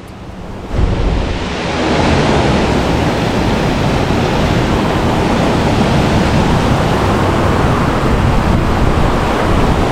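Steady loud roar of high water pouring over a flooded river spillway, coming up about a second in.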